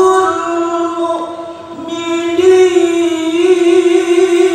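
Male qari with a high voice reciting the Qur'an in melodic tilawah style. He holds an ornamented note, dips briefly about one and a half seconds in, then sustains a long, slightly wavering note from about two and a half seconds in.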